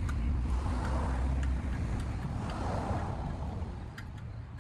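Low rumble of a vehicle going by, swelling at the start and fading away over the last second or so.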